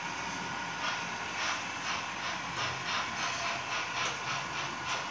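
H0-scale model train running on the layout, its wheels clicking over the rail joints about two to three times a second from about a second in, over a steady background hum.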